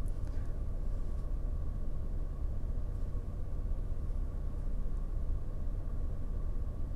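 Steady low hum inside a car's cabin, with a faint high tone over it.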